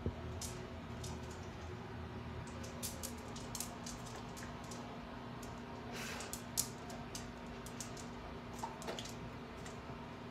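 Dog chewing a piece of celery, making irregular small wet clicks and smacks of the mouth, with a louder smack about six seconds in.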